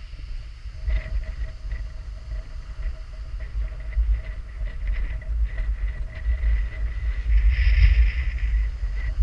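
Wind buffeting an action camera's microphone, a heavy, uneven low rumble, swelling into a louder hissing gust about eight seconds in.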